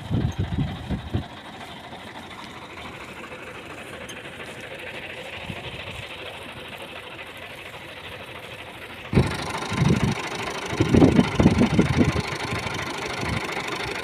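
Tractor's diesel engine running steadily. A few low thumps come in the first second, and about nine seconds in the sound grows louder, with uneven low knocking.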